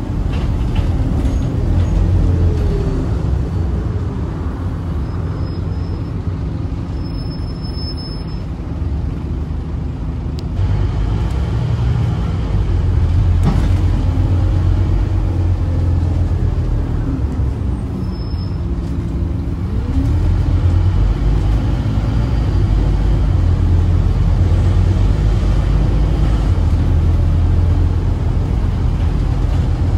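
Scania N230UD double-decker bus's five-cylinder diesel and road noise heard from the upper deck while under way: a steady low drone. The engine note dips and rises a couple of times as the bus eases off and picks up speed again.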